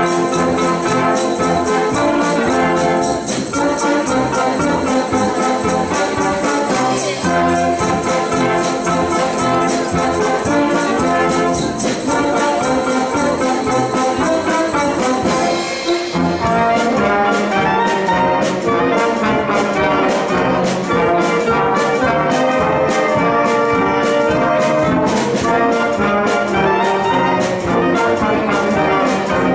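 Wind band playing an upbeat piece, brass and woodwinds over a steady percussion beat. About halfway through there is a brief dip, and the beat then comes through more sharply.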